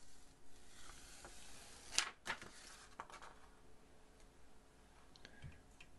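Quiet handling of a thin steel build plate sheet and its adhesive backing: one sharp click about two seconds in, then a few faint ticks.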